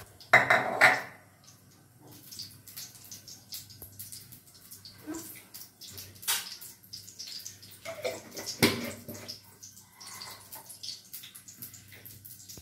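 A steel spoon clatters and scrapes against a steel kadhai as ghee is dropped into it, loudest about half a second in, with sharper clinks about six and eight and a half seconds in. Between them come faint scattered crackles of ghee melting in the heating pan.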